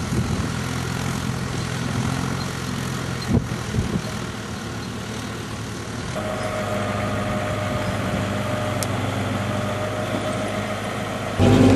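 A vehicle engine running steadily at low revs, with a few knocks in the first half and a change in its note about halfway through. Music comes in right at the end.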